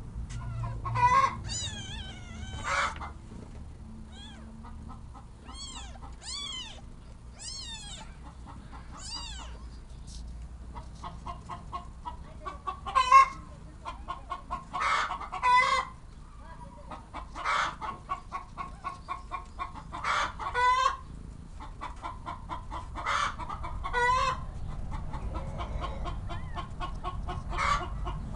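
Newborn kittens mewing: repeated thin, high-pitched cries, some in quick runs, the loudest about halfway through.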